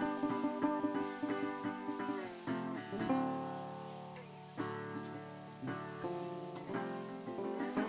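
Background music led by a plucked guitar.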